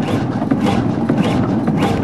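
Hundested 45 HP one-cylinder two-stroke hot-bulb (semidiesel) marine engine running: a steady rhythmic beat of knocks over a low rumble.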